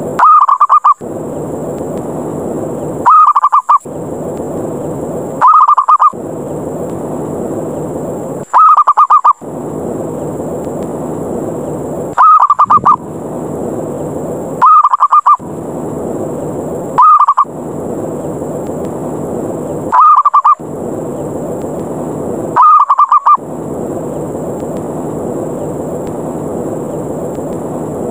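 Zebra dove (perkutut) lure call, the rapid rolling 'ngerot' challenge call, repeated nine times about every two and a half to three seconds. A steady noisy hiss fills the gaps between calls.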